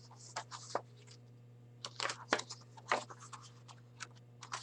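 Paper pages of a picture book being handled and turned: a string of short scratchy rustles and scrapes, heaviest about two to three seconds in.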